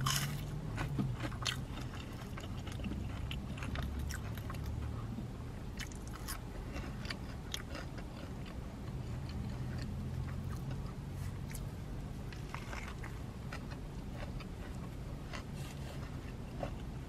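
Close-miked chewing of crispy fried fast food, starting on waffle fries: a steady run of small crunches and wet mouth clicks.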